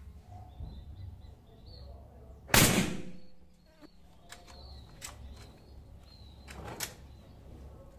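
Marauder pre-charged pneumatic air rifle fired once about two and a half seconds in, a single sharp report with a short tail. Near the end the bolt is worked with a short mechanical clack, and birds chirp faintly behind.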